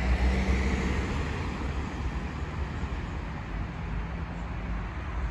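Steady rumble of wheels rolling on a paved path and wind on the microphone while riding, with a faint low hum that is strongest for about the first second.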